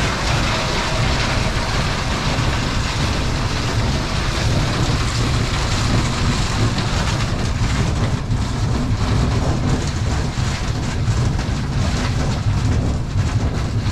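Coin-operated ice-making machine running with a steady low rumble and a continuous rattling clatter, while no ice comes out of the chute.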